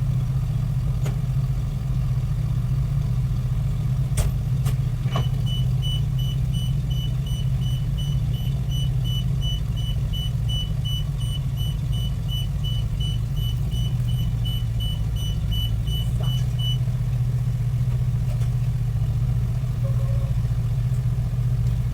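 A vehicle engine idling steadily, with a fast electronic beeping (about three beeps a second) that starts about a quarter of the way in and stops near three-quarters through. A few sharp clicks come just before the beeping starts.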